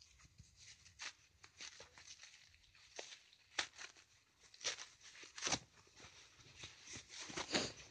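Paper towel wrapping being pulled open and torn by hand: irregular rustling and crinkling with a few sharper crackles.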